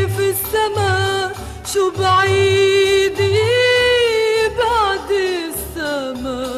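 Arabic song: a woman's voice sings long held, ornamented notes over an accompanying band with a pulsing bass line, the melody sliding downward in the last couple of seconds.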